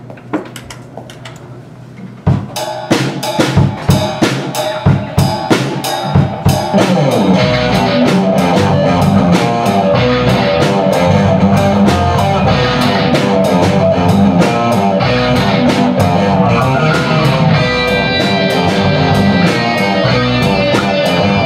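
Live instrumental rock band starting a tune: after a couple of quieter seconds the drum kit comes in with hard hits, and about seven seconds in the electric guitars and bass guitar join for a dense, steady full-band groove.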